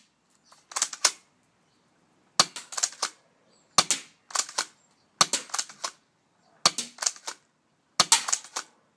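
Spring airsoft M3000 pump-action shotgun being fired and pumped over and over: about six groups of sharp plastic clacks, one every second and a half or so, each a shot followed by the pump being worked.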